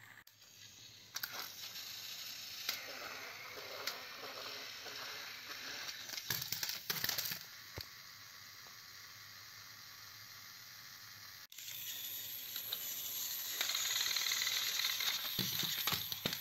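Small electric motors and plastic gears of battery-powered toy trains whirring and buzzing as the trains lie on their sides with wheels spinning. Several sharp clattering knocks as more trains drop off the end of the plastic track onto the rug.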